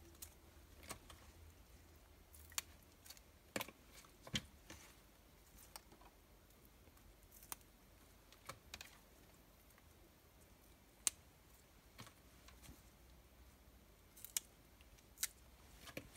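Water spinach (morning glory) stems snapped by hand: scattered crisp snaps at uneven spacing, some a second or more apart.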